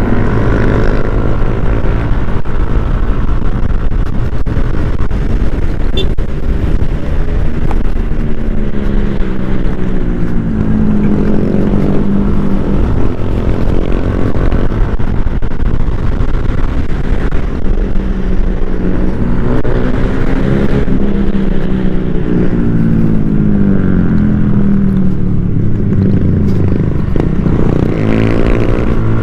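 Yamaha NMAX scooter's single-cylinder engine running under way, its pitch rising and falling as the rider speeds up and eases off, over a steady low rumble of wind on the microphone.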